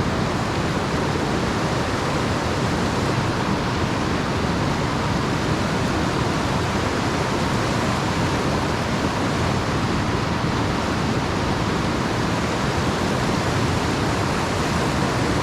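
Rushing water, a steady loud hiss of a stream or cascade close to the microphone, starting and stopping abruptly.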